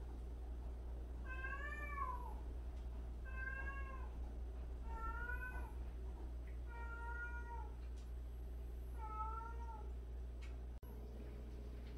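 A domestic cat meowing five times, each meow about a second long with a slight rise and fall in pitch, about two seconds apart.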